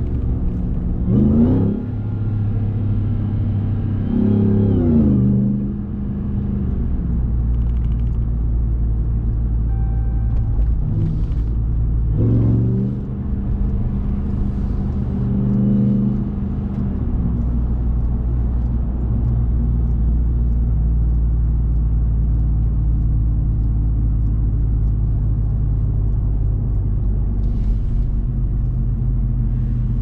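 The 2021 RAM 1500 TRX's supercharged 6.2-litre Hemi V8 pulling the truck through several short bursts of acceleration, its pitch climbing and then dropping as it shifts gears, four times over the first half. It then settles into a steady cruise for the rest of the time, with a short beep about ten seconds in.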